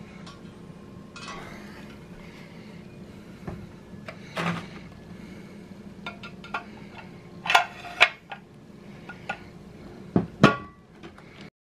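Gaming chair assembly hardware clinking and knocking: bolts handled in their paper packet and a chair part set down on the table. The clicks are scattered, with a few sharper metallic clinks that ring briefly, loudest about eight seconds and ten and a half seconds in. The sound cuts off suddenly just before the end.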